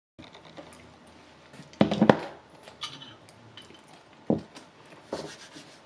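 Scattered knocks and clatter of objects being handled. The loudest are a pair about two seconds in and another single knock just past four seconds.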